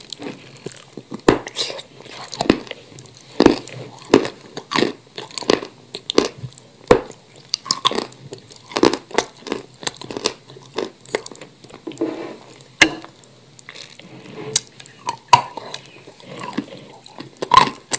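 Bites and chewing of pieces of edible chalk dipped in wet paste: a run of irregular crisp crunches, roughly one or two a second, with softer wet chewing between them.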